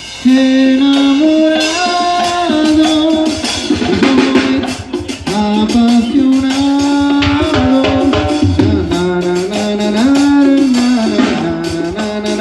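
Live Mexican banda music: trumpets, trombones and tuba playing over drum kit and percussion, with the tuba carrying a stepping bass line under the brass.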